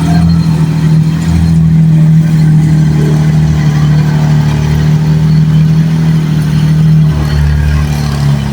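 Engine running steadily under load with a constant droning note, which drops slightly about seven seconds in.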